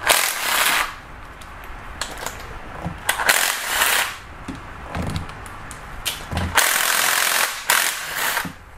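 Handheld power ratchet with a 10 mm socket running in short bursts of about a second each, spinning out the bolts of a timing chain guide on a Hyundai/Kia 2.4 GDI engine, with a few dull knocks between bursts.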